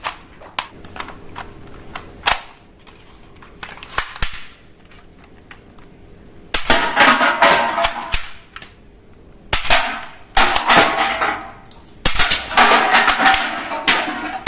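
Toy guns firing: a few single sharp clicks or pops, then three rapid rattling bursts of about two seconds each, like a toy machine gun.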